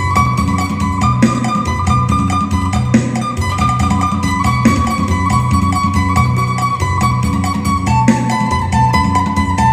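Isan phin, the Thai plucked lute, playing a fast lam sing melody of rapid plucked notes over a steady drone, with a repeating low accompaniment beneath.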